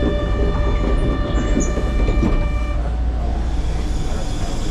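Kyoto subway train rumbling, with a steady buzzing tone over it that sounds for about three seconds and then cuts off.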